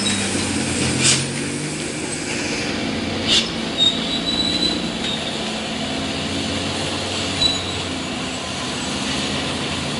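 Loaded tronton dump truck rolling slowly down a steep wet grade: a low engine rumble with thin, high brake squeals a few times and two short hisses.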